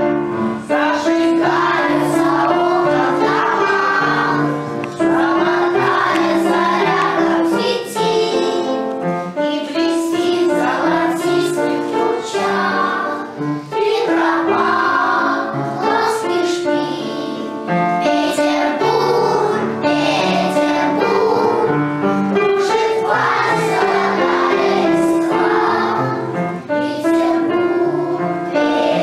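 Young children's choir singing a song together over an instrumental accompaniment.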